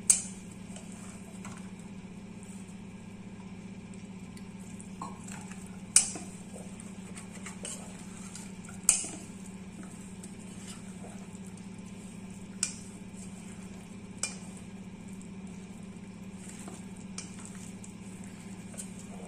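Hands mixing cauliflower florets into a thick flour-and-chilli marinade in a stainless steel bowl: soft squishing and rubbing, with a few sharp clinks against the steel. The loudest clinks come at the very start, about six seconds in and about nine seconds in, over a steady low hum.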